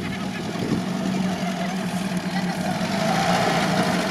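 UAZ-469 off-roader's engine running at low revs as it crawls slowly forward over rough grass, a steady hum that grows a little louder about three seconds in as it comes closer.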